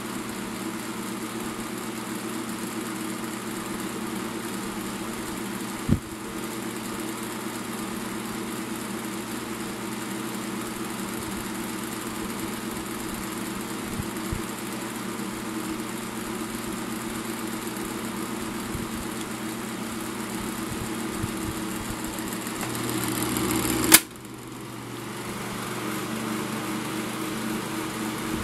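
1987 Ku Hsing 12-inch table fan running: a steady motor hum under the rush of the blades' air, with the rattle of its worn bearings. Near the end the sound swells, there is a sharp click, and it drops and then builds back up.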